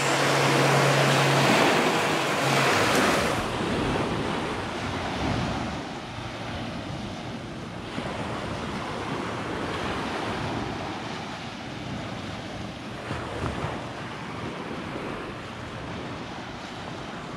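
Small waves washing onto a sandy beach, with wind buffeting the microphone; louder for the first few seconds, then softer.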